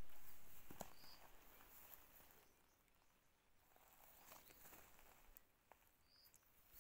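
Near silence outdoors: a dull noise fades away over the first second or two, then faint footsteps and phone-handling rustles of someone walking on a dirt path. Two brief high chirps come about a second in and near the end.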